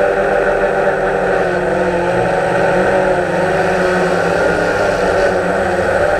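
DJI Phantom quadcopter's electric motors and propellers whining steadily, heard close up from the camera mounted on the drone, the pitch wavering a little about two seconds in.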